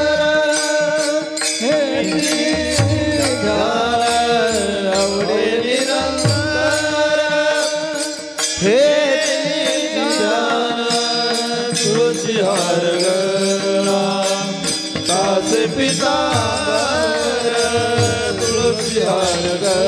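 Warkari devotional bhajan: a chorus of men singing a long, drawn-out melody, with small brass hand cymbals (taal) clashing in a steady rhythm throughout.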